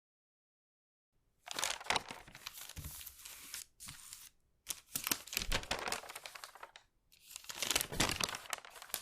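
Pages of paper being flipped, in three quick runs of many rapid page strokes, starting about a second and a half in.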